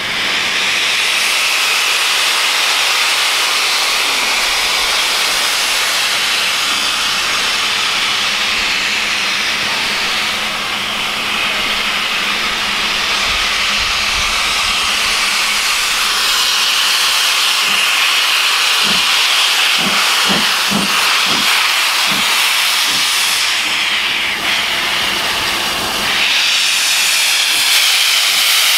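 LSWR Urie S15 4-6-0 steam locomotive starting a train away from a standstill, its open cylinder drain cocks hissing loudly throughout. In the second half slow exhaust beats come through, about two a second.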